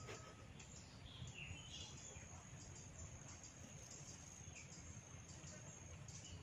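Faint background ambience: a few short bird chirps early on and a steady high insect trill through the middle, over a low rumble.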